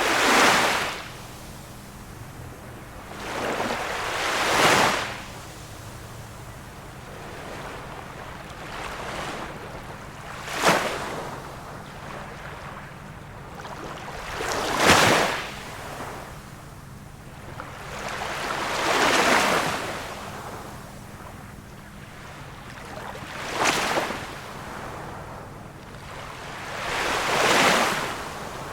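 Small waves of a calm sea washing in one after another, about every four seconds, each one swelling up and falling away.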